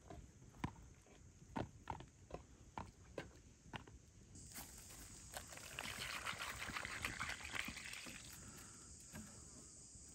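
A few light knocks and steps, then water poured from a large plastic bottle splashing onto tomatoes in a bowl for about three seconds, starting about halfway through.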